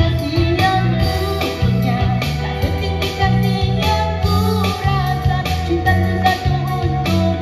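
Live band: a woman singing a Malay-language pop song over electric guitar, keyboard and drums, with a steady bass line.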